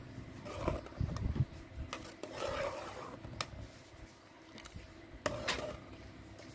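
Metal ladle scraping and knocking against the inside of a metal soup pot while stirring the soup. There are a few low thumps about a second in and a sharp scrape a little past the middle.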